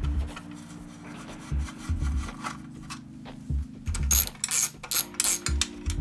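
Scraping and rubbing noises in short sharp bursts, loudest from about four to five and a half seconds in, over background music with steady chords and a regular thumping beat.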